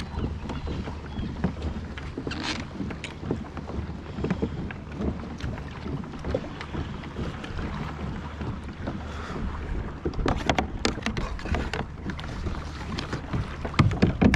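Water lapping and slapping against a plastic sit-on-top kayak's hull, with wind on the microphone. A denser run of sharper knocks and clicks comes near the end as gear is handled in the kayak.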